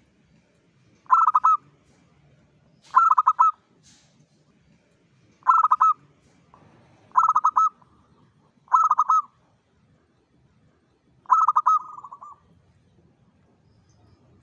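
Zebra dove (perkutut) cooing: six short phrases of quick, rattling coo notes a second or two apart, the last one drawn out a little longer.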